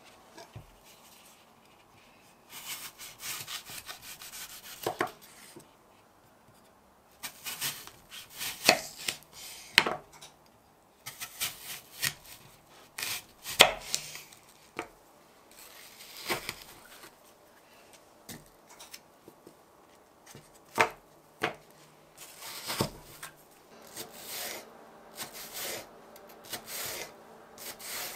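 Kitchen knife cutting food on a cutting board, in short runs of sharp strokes with pauses between.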